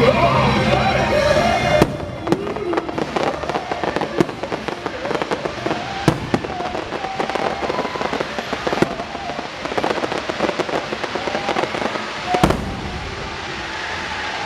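Fireworks going off in quick succession, sharp bangs and crackles with a bigger burst near the end, over the show's soundtrack music, which is loud for the first two seconds and then drops back.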